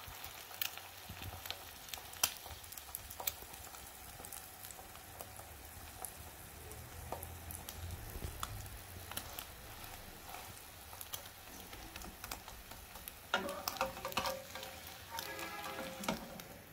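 An egg frying in a little oil on a ridged nonstick grill pan as its second side cooks. It makes a steady sizzle with frequent small crackling pops.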